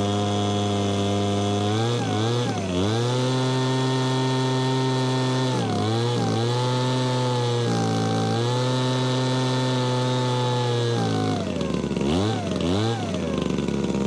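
Small two-stroke engine of a petrol leaf blower vac running at high revs just after first starting on a primed carburettor. The engine pitch dips and recovers several times, and near the end it drops twice before settling at a lower speed.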